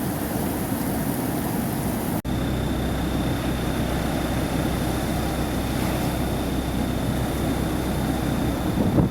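Strong typhoon wind buffeting the microphone over crashing surf. After a short break about two seconds in, a steady low hum and a faint high whine also run underneath.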